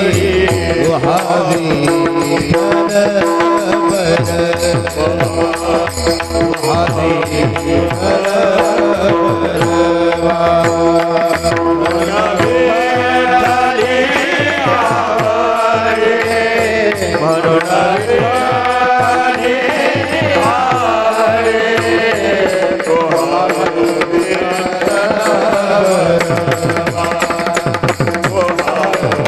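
Marathi devotional abhang music: a voice singing long, drawn-out melodic runs over a held harmonium drone and a steady hand-drum beat.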